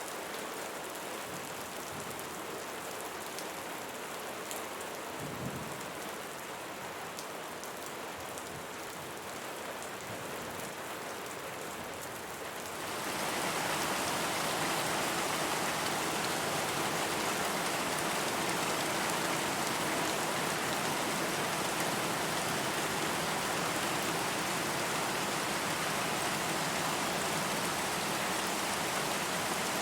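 Steady rainfall with individual drops pattering, turning heavier and louder about halfway through.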